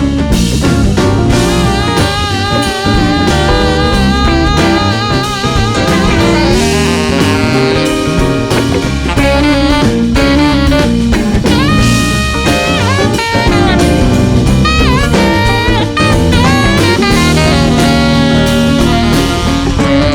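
Live rock band playing an instrumental break: a lead instrument solos with wavering, bending held notes over bass, guitar and drums.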